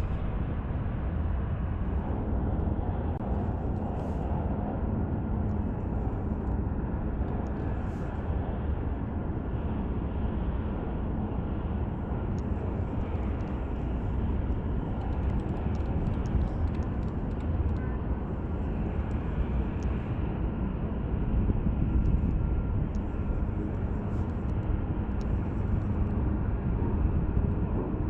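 Steady low outdoor rumble with no clear beginning or end, with a few faint light ticks over it.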